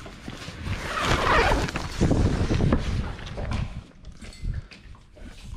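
Tent fabric rustling with bumps and thumps as a person scrambles out of a tent on a small boat to reach a rod with a fish on. It grows quieter after about three and a half seconds, leaving a few small clicks.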